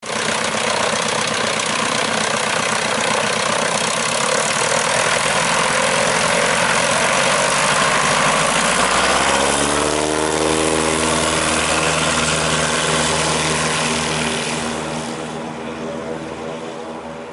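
Piper Super Cub bush plane's engine and propeller running at high power on the ground, with the engine note rising about nine seconds in as the plane rolls off on its takeoff run. It fades over the last few seconds as the plane moves away down the strip.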